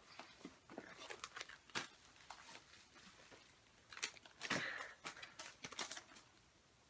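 Packaging being handled: crinkling and rustling with light clicks and taps, busiest near the end.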